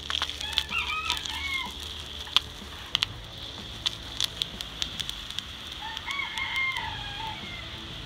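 A rooster crowing twice, first about half a second in and again about six seconds in, over a steady high hiss. A few sharp clicks fall between the crows, the loudest about two and a half seconds in.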